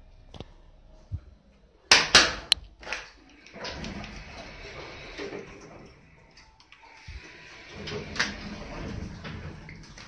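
Hitachi elevator at a landing: a few sharp relay and door-mechanism clicks about two seconds in, then the door operator motor running with a steady rushing noise as the sliding car door moves, swelling again near the end.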